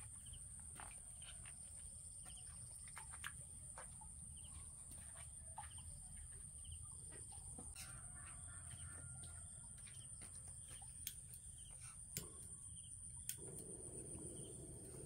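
Faint outdoor farmyard ambience with chickens clucking. A steady high-pitched whine runs underneath, with scattered small clicks and taps.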